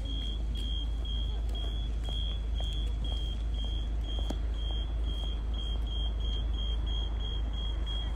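Audible pedestrian-crossing signal repeating a short high beep about two and a half times a second, quickening to about three times a second some five seconds in, over a low steady rumble of traffic.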